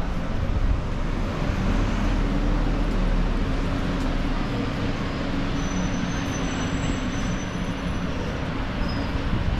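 A vehicle engine running steadily with a low drone, over the general noise of street traffic.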